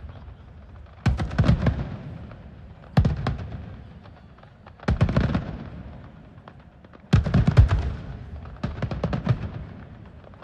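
Aerial fireworks bursting in volleys: five clusters of rapid bangs, each clustered salvo followed by a fading echo, coming about every two seconds.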